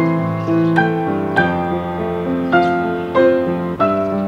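Solo piano music: a slow melody over sustained chords, with a new note struck roughly every half second.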